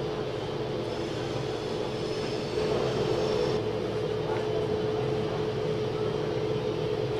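Parked electric locomotive running steadily at standstill: a constant mechanical drone with a steady mid-pitched hum, getting a little louder about two and a half seconds in.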